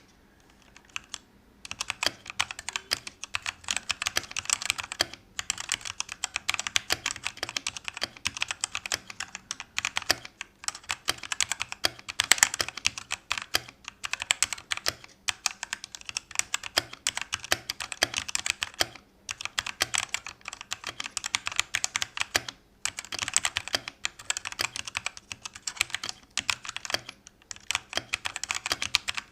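Typing on an unmodified E-Yooso Z11T mechanical keyboard with Huano Red linear switches: a rapid, continuous clatter of keystrokes that starts about a second and a half in, broken by a few short pauses.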